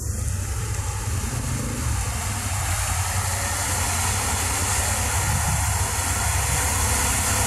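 ATV engine running steadily, with no revving, under a constant hiss.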